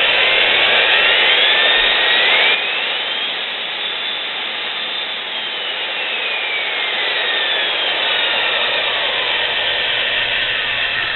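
Milwaukee 4262-1 magnetic drill's electric motor running free with no bit, likely in reverse, loudest for the first couple of seconds. Its whine rises in pitch over about five seconds as the variable speed is turned up, then falls as it is turned back down.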